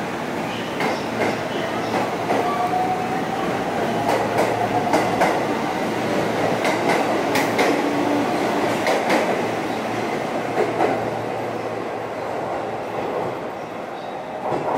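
JR West 223 series electric train pulling out of the station and past close by: a rising motor whine as it gathers speed, then wheels clacking over the rail joints, fading away as the last car leaves.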